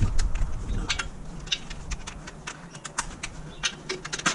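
Sharp, irregular metallic clicks and taps from hand tools working on the clutch cover bolts of a Toyota Hilux, over a low steady rumble.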